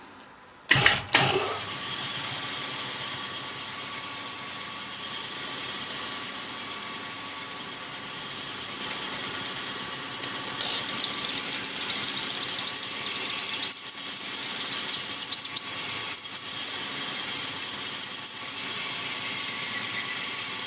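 Cylinder-honing machine starting about a second in and running, its abrasive stones grinding inside a cylinder bore of a Perkins 248 engine block with a steady high-pitched squeal over a grinding noise.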